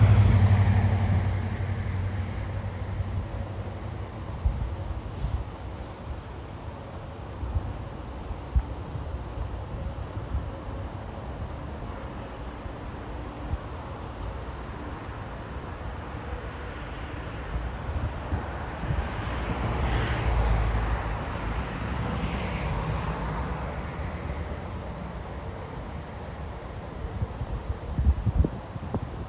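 Crickets chirping in a steady, even pulse, with a low outdoor rumble that swells at the start and again about twenty seconds in.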